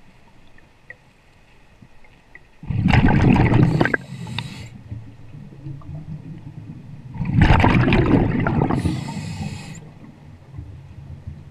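Scuba diver breathing out through the regulator: two long bursts of exhaust bubbles rushing past, about four seconds apart, over a low steady rumble.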